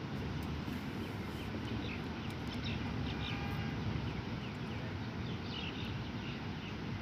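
Steady low background rumble with a scattered series of short, high chirps.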